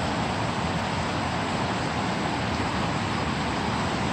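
Steady rushing of a river's current, an even hiss of flowing water with no breaks.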